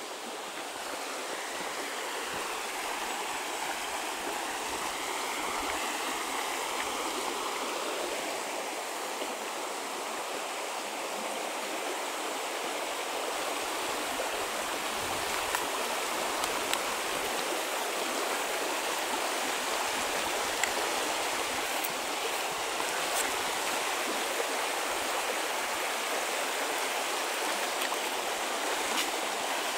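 Shallow stream running over rocks and stones, a steady rushing babble that grows a little louder over the first several seconds.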